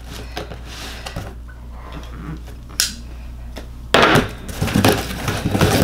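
A knife cutting the packing tape on a cardboard shipping box, heard as faint scraping with one sharp click about three seconds in. From about four seconds in, loud cardboard rustling and scraping as the box flaps are pulled open.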